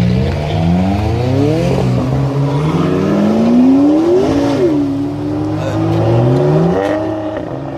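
A sports car engine accelerating hard through the gears, its pitch climbing and dropping back at each shift, about three times.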